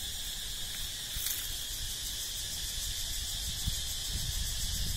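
Steady high-pitched insect chorus, a continuous buzz, with some low rumble on the microphone.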